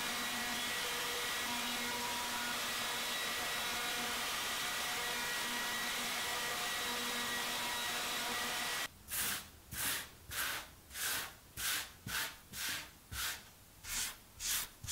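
Electric plunge router running steadily as it is pushed along a planing jig, flattening a wooden tabletop. About nine seconds in it cuts off abruptly, followed by a hand rubbing back and forth over the dusty wood surface, about two strokes a second.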